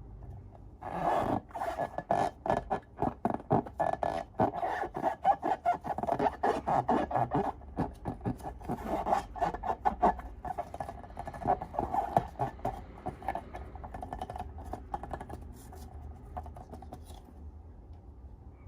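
Slime being handled and squished, with dense sticky crackles and scraping clicks that thin out to a faint rustle over the last few seconds.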